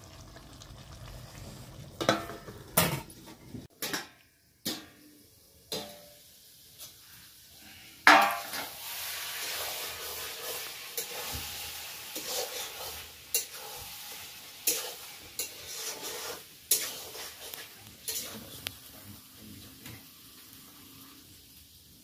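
Metal ladle clanking and scraping against a metal wok as mutton curry is stirred, with sharp knocks every second or so. The curry sizzles; the sizzle starts suddenly about eight seconds in and slowly fades near the end.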